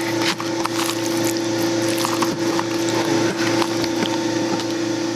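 Wet squishing and scattered light clicks of hands turning seasoned raw chicken pieces in a plastic tub, over a steady low hum.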